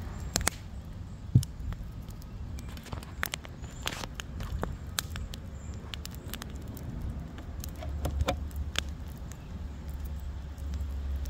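Wood fire crackling in a fire pit: scattered sharp pops and snaps, with a low rumble coming in about eight seconds in.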